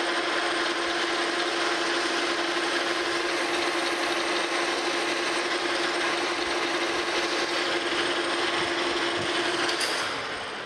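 Monarch Model K metal lathe running under power, its spindle spinning a metal shaft while the cutting tool takes a cut and peels off chips: a loud, steady machine sound with a constant low hum. About ten seconds in, the lathe is shut off and the sound fades as the spindle winds down.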